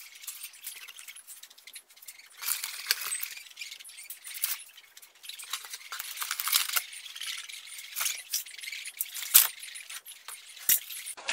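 Handling noise: irregular rustling and scuffing with several sharp clicks, from the phone being carried about while guinea pigs are caught and moved back into their pen.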